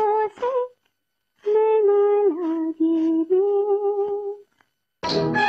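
A woman's voice humming a slow, unaccompanied melody in long held notes with small slides between them, in two phrases separated by a pause. Near the end a sitar and orchestra come in.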